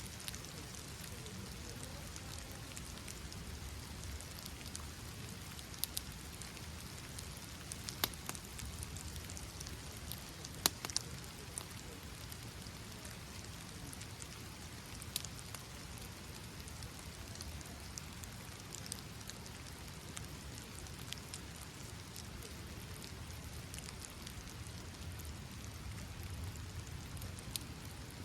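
Steady rain falling, with a handful of sharp clicks scattered through it, the loudest two about eight and eleven seconds in.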